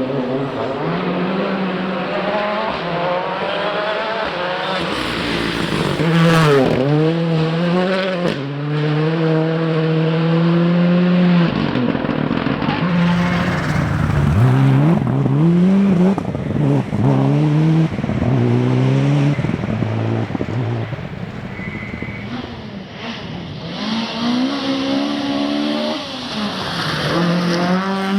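Rally car engine at full throttle, its pitch climbing through the gears in repeated steps and dropping back as the driver lifts off and brakes, then accelerating again.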